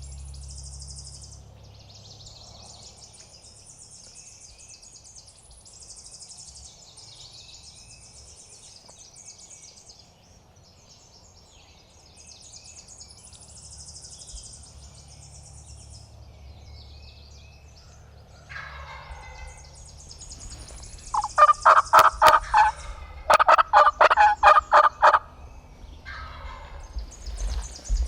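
Wild turkey gobbling: two loud, rapid rattling gobbles in the second half, with a softer call just before and a shorter one after. Small birds chirp faintly throughout.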